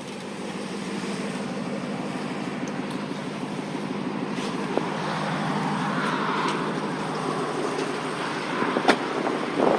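The Hellcat Redeye's supercharged 6.2-litre V8 idling with a steady hum, heard from outside the car. The hiss of tyres on wet pavement swells about six seconds in, and there are a couple of light clicks.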